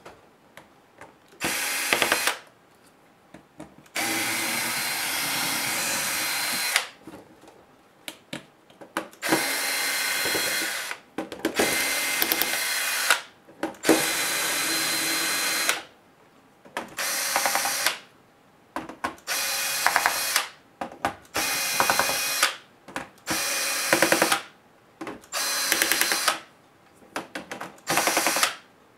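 Cordless drill-driver spinning screws out of a laptop's plastic bottom case. It runs in about a dozen short bursts of one to three seconds each, with short pauses and a few clicks between them.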